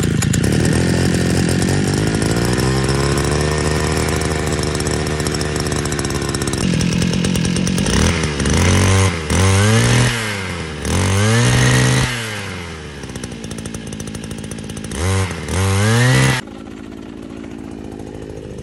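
Two-stroke engine of a Fubag FPT 43 petrol brush cutter, just started, running steadily. From about eight seconds in it is revved up and down several times with the throttle, then it drops back to a quieter idle near the end.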